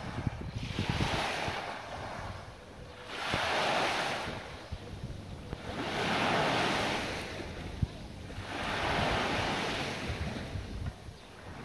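Small sea waves washing onto the shore, swelling and fading about every two and a half to three seconds, four times, with wind rumbling on the microphone.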